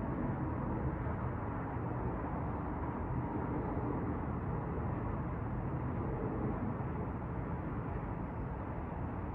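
Steady wash of city street traffic heard from high above the street, a constant low hum with no single vehicle or horn standing out.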